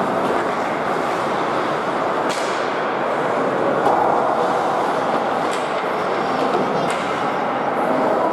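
Ice hockey game sound at a rink: a steady rumble of skating and crowd, with a few sharp knocks of sticks or puck.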